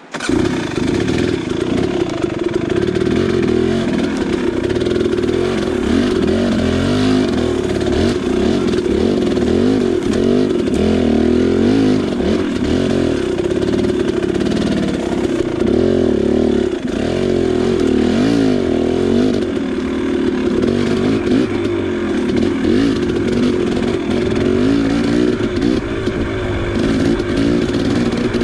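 KTM 300XC's two-stroke single-cylinder dirt bike engine running under way, its revs rising and falling continuously with the throttle.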